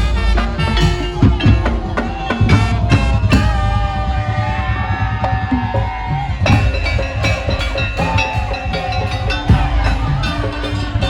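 Music with a steady drum and percussion beat, and a long held melody note about halfway through and again near the end.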